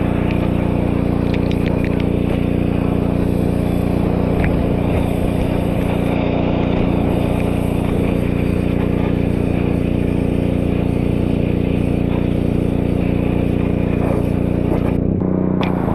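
Pressure washer running steadily under the hiss of its spray, driving a sandblaster attachment that blasts walnut shell media off paint. Near the end the hiss cuts out for about half a second while the machine's hum carries on.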